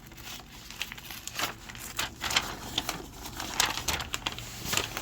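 Paper and wrapping rustling and crinkling in irregular crackles as a pack of vintage paper ephemera is opened and handled.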